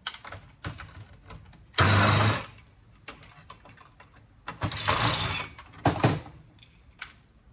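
A small handheld power tool, such as a cordless screwdriver, whirring in a few short bursts while an aluminum part is taken off a scrapped home theater unit, with clicks and knocks of metal parts in between.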